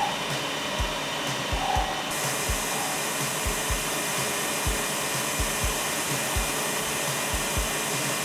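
Metal lathe running steadily while its cutting tool faces off the end of a 3/8-inch pushrod, with low thuds repeating irregularly a few times a second. The hiss gets brighter about two seconds in.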